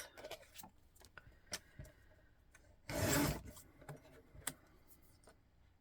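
Paper and card being handled and cut: scattered small clicks and taps, with one short scraping swish about three seconds in.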